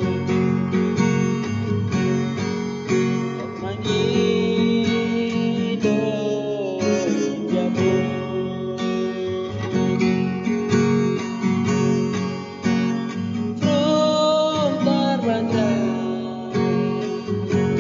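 Music: a song carried by strummed acoustic guitar, with a melody line that bends in pitch now and then.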